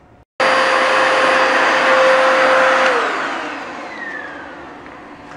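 Bissell PowerEdge Pet 81L2A corded hard-floor vacuum cuts in suddenly, running with a steady whine. About three seconds in it is switched off and its motor winds down, the whine falling in pitch as it fades.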